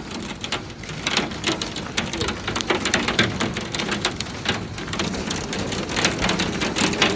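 Hailstorm: hailstones pelting down in a dense stream of sharp, separate hits, over a steady rush of rain.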